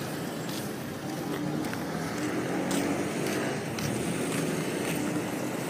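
A motor vehicle engine running steadily, a low even hum, with faint light taps about once a second.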